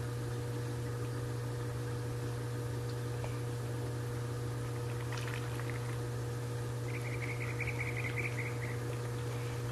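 Steady low machine hum throughout. A bird's quick run of high chirps comes in near the end, lasting under two seconds.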